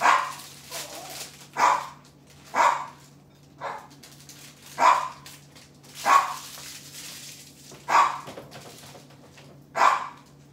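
A dog barking repeatedly, about eight single sharp barks spaced a second or two apart.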